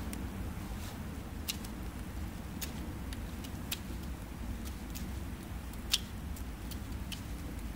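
Steady low rumble with irregular small sharp clicks from close hand work on the shelter, the loudest click about six seconds in.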